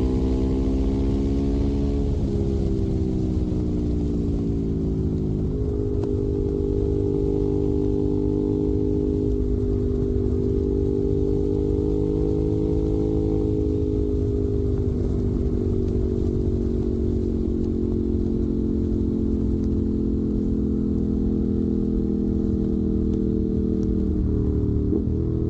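Ducati Monster 821's L-twin engine running through a Termignoni exhaust, holding a steady note with slow small rises and falls in pitch and a brief wobble near the end.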